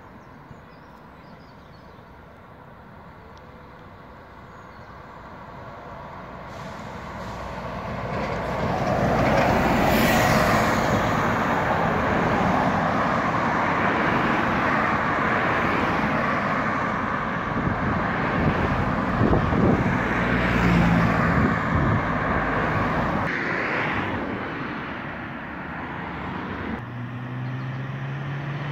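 Scania OmniCity single-deck bus approaching and driving past close by, followed by passing cars. The traffic noise builds to a peak about ten seconds in and stays loud, then fades toward the end.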